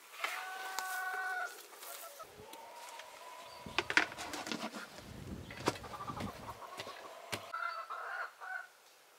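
Chickens calling and clucking: one longer held call in the first second and a half, more short calls near the end, with a few sharp knocks in between.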